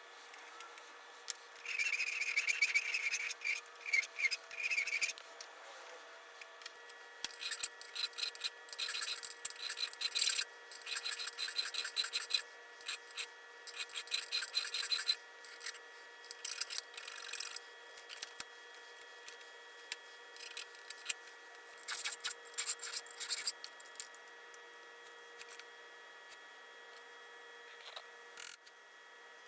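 Hand abrasive work on antique coffee grinder parts: short runs of quick rubbing and scraping strokes with pauses between, squeaking in the first run.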